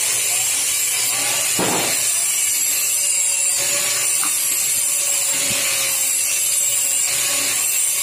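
Steady machinery hiss with a faint steady hum in a sheet-metal workshop, with a short scraping noise about a second and a half in and a few light ticks.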